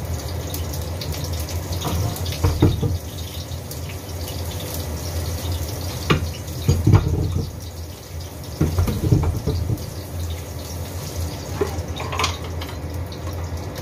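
Water running at a kitchen sink, with a handful of sharp knocks and clinks of kitchenware spread through it.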